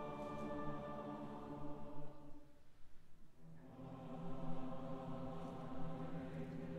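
Choir and orchestra holding long sustained chords in a live performance of a choral symphony. The sound thins to a hush about two and a half seconds in, then a new chord swells in a second later.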